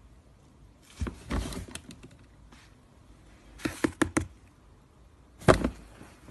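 A few dull thumps and knocks: one about a second in, a quick run of four or five light knocks near the middle, and another thump late on.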